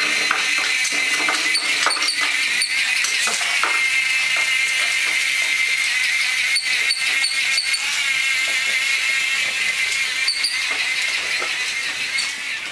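Small electric motor of a battery-powered moving rat toy running with a steady high whine as the toy scoots across a tiled floor. A few sharp clicks come through over it.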